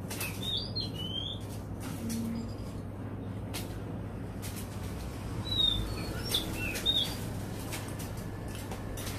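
Oriental magpie-robin giving short, scattered chirps and whistled notes, a few near the start and a cluster around the middle. Sharp clicks and a steady low hum are also present.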